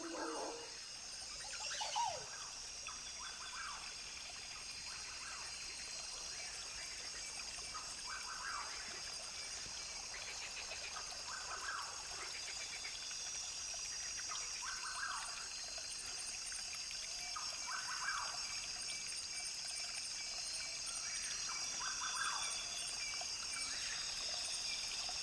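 Rainforest ambience recording: a brook trickling under a steady high-pitched drone, with short calls repeating every two to three seconds and one long falling call about two seconds in.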